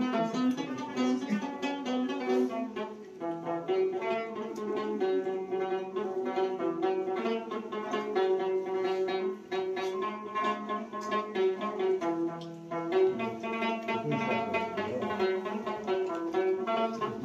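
Instrumental string music: a quick plucked melody over held notes.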